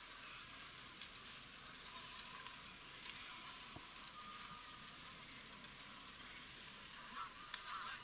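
Faint outdoor crowd ambience from a ski-slope crowd: a steady hiss with distant voices calling out, most noticeable near the end, and a sharp click about a second in and another near the end.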